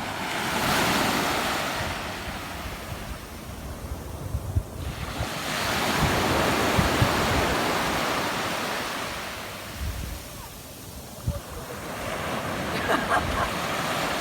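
Sea surf washing in and drawing back, swelling and fading about every five to six seconds, with wind buffeting the microphone.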